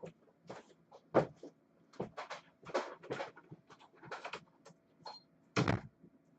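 Irregular knocks, taps and clatters of objects being handled and set down. There is a louder thump about a second in and another near the end.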